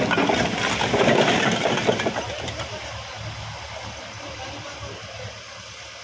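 Fired clay bricks clattering and knocking together as they land in a tractor trolley, a dense burst of clatter that dies away about two and a half seconds in. Underneath, the Mahindra 585 DI XP Plus tractor's diesel engine idles steadily.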